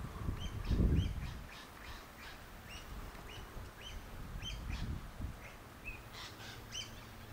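Eastern rosella giving a string of short, high chirping calls, about two a second. Low rumbles of wind on the microphone come through, the loudest about a second in.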